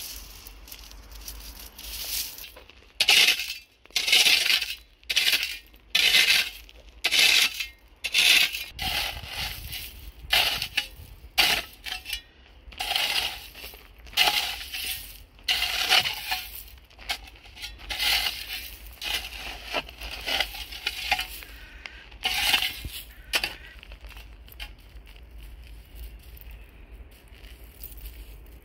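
Metal spade scraping over gritty, gravelly ground strewn with dry grass: about one scraping stroke a second, each a harsh crunch, the strokes stopping a few seconds before the end.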